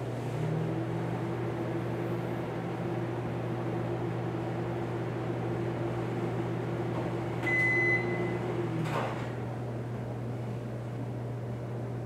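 Microwave oven running with a steady hum. A single high beep about seven and a half seconds in marks the end of the heating cycle, the running sound stops a second later, and the door latch clicks open.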